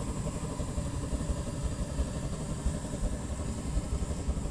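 Oil/gas-fired aluminium melting furnace burner running: a steady, fluttering low rumble with a faint high whine over it.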